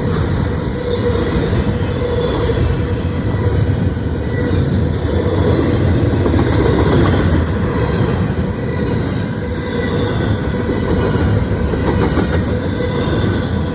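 Norfolk Southern intermodal freight train rolling past at close range: a loud, steady rumble of wheels on rail.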